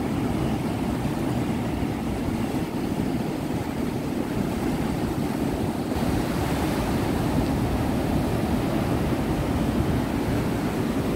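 Ocean surf washing onto a sandy beach: a steady rushing noise with no distinct breaks.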